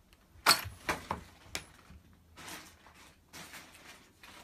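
A sharp knock about half a second in, followed by three lighter knocks within the next second, then quieter rustling.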